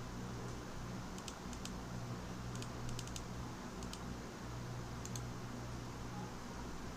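Computer keyboard clicking in small, irregular clusters of keystrokes over a steady low electrical hum.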